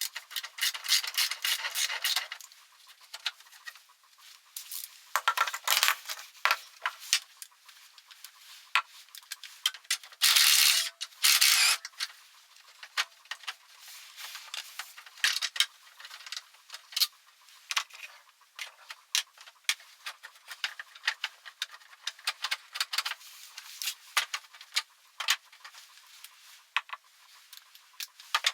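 Hand work with small metal parts and tools: a run of light clicks and clinks, broken by several stretches of rubbing or scraping.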